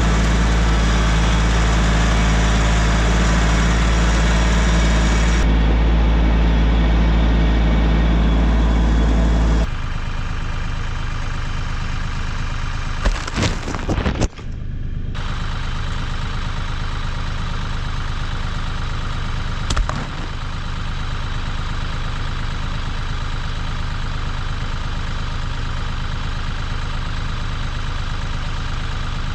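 An engine running steadily. Its sound changes abruptly about ten seconds in, and a few clicks and a brief dropout follow a few seconds later.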